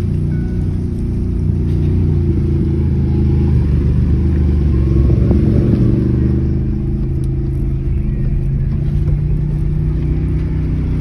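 Ford's engine running under way as it drives off-road, heard from inside the vehicle; it pulls harder from about two seconds in and eases off again around six seconds.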